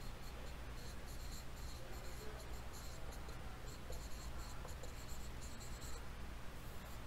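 Dry-erase marker scratching and squeaking across a whiteboard in a run of short strokes as letters are written, with a faint steady low hum underneath.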